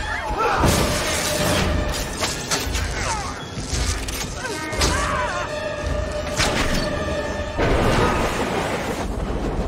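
Action-film fight soundtrack: dramatic score mixed with repeated hard impacts, booms and shattering.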